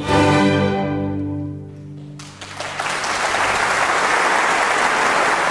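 String orchestra's final chord, struck loud and fading away over about two seconds as the piece ends. Audience applause then breaks out and keeps going steadily.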